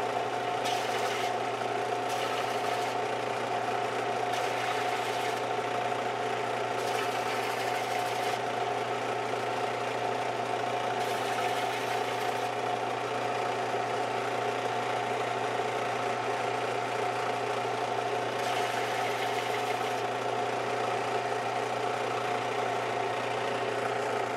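Central Machinery benchtop belt sander running steadily with a constant motor hum. Several times there is a short spell of sanding noise as the rounded end of a CPVC pipe cap is pressed to the moving belt and ground flat.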